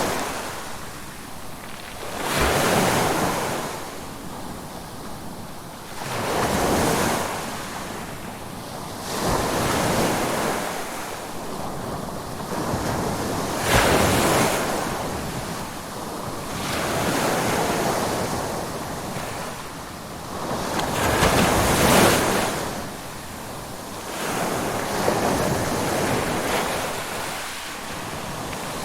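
Ocean waves breaking and washing up on a shore, each one swelling and fading every three to four seconds, about eight waves in all.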